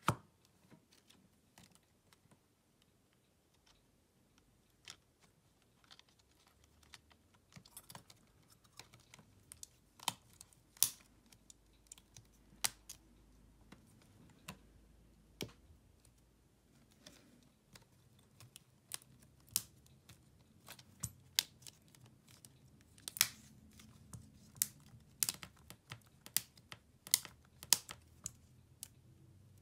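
Irregular small clicks and taps of repair tools and phone parts being handled during a smartphone disassembly, coming more often in the second half.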